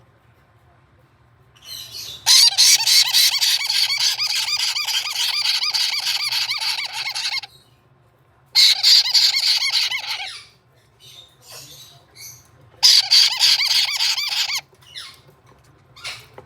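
Caique parrot chick food-begging while being fed: three bouts of rapid, rhythmic pulsing calls, the first about five seconds long, with a few short chirps in between.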